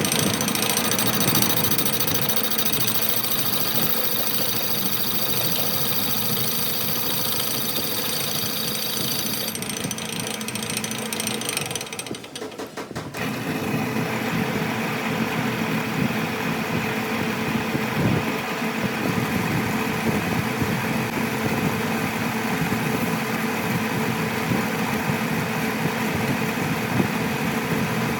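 Machine-shop machinery running steadily, with a brief drop about twelve seconds in before a different steady machine noise takes over.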